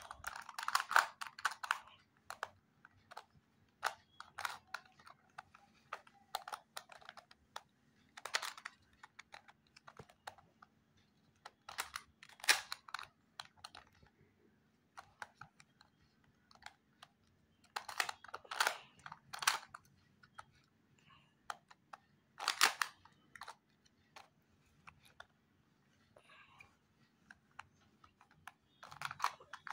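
Plastic Ivy Cube puzzle being twisted by hand: irregular clicks and clacks of its pieces turning, in scattered clusters with pauses between.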